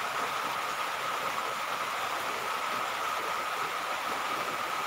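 Steady background hiss with a thin, steady high whine running under it, and no distinct events.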